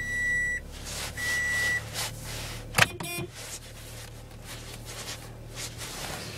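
Dashboard warning chime of a 2005 Toyota Corolla CE beeping twice, each beep about half a second long, over the steady low hum of its 1.8-litre four-cylinder engine idling just after a cold start. A sharp click and a short rattle come about three seconds in.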